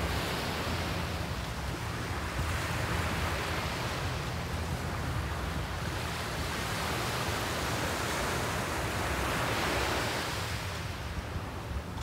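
Small waves breaking and washing up a sandy beach, the surf rising and falling as each one comes in, loudest about ten seconds in.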